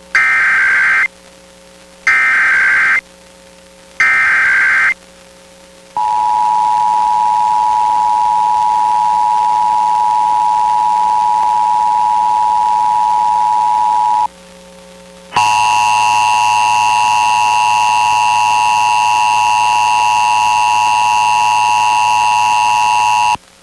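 Emergency Alert System test tones on FM radio: three short bursts of warbling digital header data, then the steady two-tone attention signal for about eight seconds. After a one-second gap a second stretch of two-tone signal follows, this one with added higher tones and a low hum.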